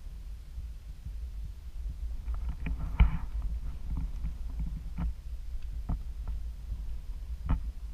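Handling noise from a handheld action camera being moved: a steady low rumble with a run of knocks and taps from about two seconds in, the loudest near three seconds, then a few single knocks.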